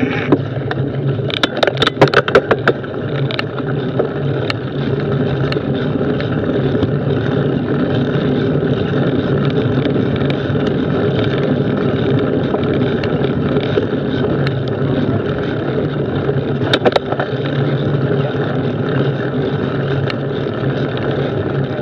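Mountain bike rolling along a dirt woodland trail: a steady rumble of knobbly tyres on the dirt, with a cluster of sharp rattling clicks about two seconds in and a shorter burst about three-quarters of the way through.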